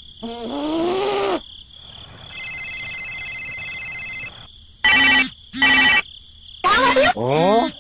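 A mobile phone ringtone plays a steady electronic ring for about two seconds. Before and after it come short, pitch-gliding cartoon-style voice sounds.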